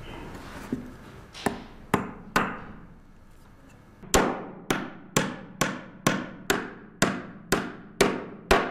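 Hammer driving a nail into wooden boards: a light tap, three blows, a short pause, then a steady run of about ten blows at roughly two a second, each one ringing briefly.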